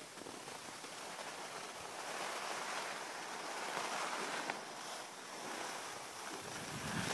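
Steady rushing hiss of skis sliding over snow, swelling and easing gently.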